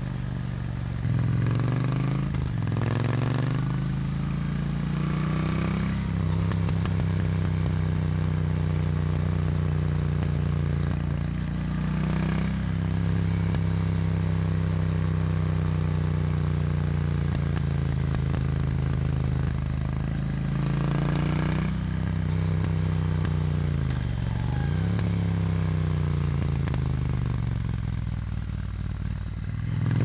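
Triumph Bonneville T100's 900 cc parallel-twin engine and exhaust under way. The engine note holds steady for stretches, then dips and climbs several times as the throttle is rolled off and on through the bends, with a sharp drop and climb about 24 seconds in.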